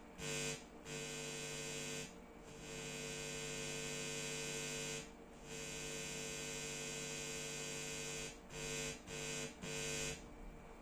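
Mains-frequency hum and buzz played out through a Hiraga 25 W class A amplifier during a simple audio test. It holds steady for a few seconds at a time, breaks off briefly several times, and comes in short on-off bursts near the end.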